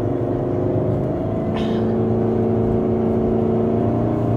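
Engine and road noise inside a moving RV's cab at highway speed: a steady hum with a short sharp rattle about a second and a half in.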